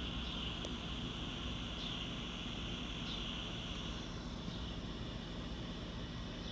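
Quiet background with steady low hum and a high, even hiss-like band. A short falling chirp repeats about every second and a half, four times, in the manner of an insect or frog calling.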